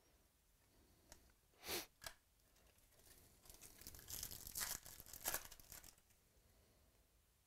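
A trading-card pack's foil wrapper being torn open and crinkled by hand: two short rips about two seconds in, then a longer run of tearing and crinkling for about three seconds.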